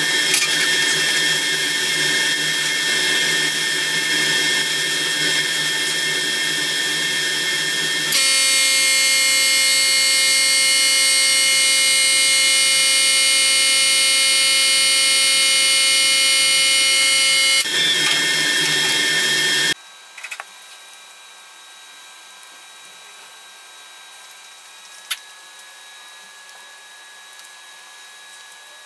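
Spray booth running while a finish is sprayed with a spray gun: a loud steady hiss of air with a whining, many-toned machine drone. About 20 seconds in it cuts off abruptly to a low, quiet workshop room tone with a couple of faint clicks.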